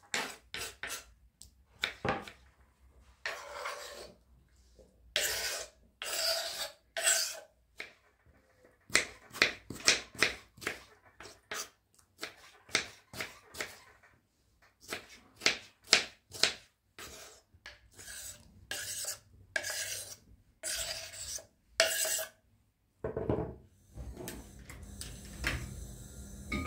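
A long irregular run of short scraping, rubbing and knocking sounds, some quick taps and some drawn-out scrapes of up to about a second, like objects being handled close to the microphone. Near the end the strokes give way to a steady low rumble.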